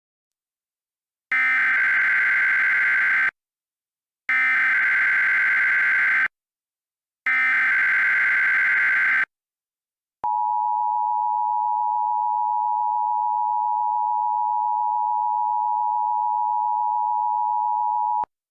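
Emergency Alert System tones: three SAME header data bursts of screeching digital tones, each about two seconds long with a second's gap between them, followed by the EAS two-tone attention signal held steadily for about eight seconds and cut off abruptly.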